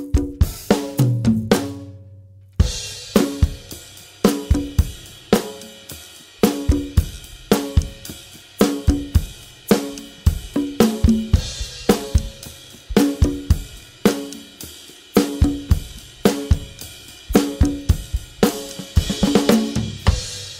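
Drum kit with steelband engine-room percussion playing a steady groove, with no pans or melody. Near the start there is a short fill and a brief stop, then the groove comes back in with a cymbal crash.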